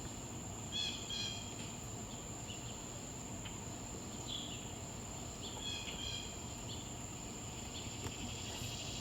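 Insects trilling steadily on one high note, with a few short bird calls about a second in and again around six seconds in. Near the end a swamp cicada's buzzing begins to build.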